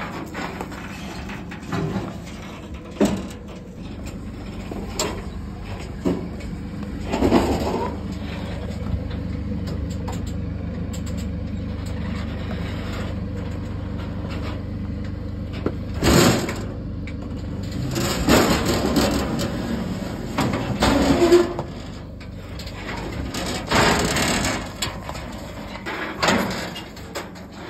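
A pickup's diesel engine runs with a steady low drone under load while it drags a loaded car-hauler trailer over rock. Loud clanks, creaks and scrapes from the trailer frame, and its tyres grinding on stone, break in repeatedly, most thickly in the second half.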